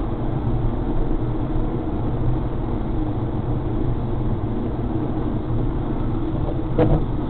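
Steady road and engine noise of a car at highway speed, heard from inside the cabin, with a short car-horn toot near the end.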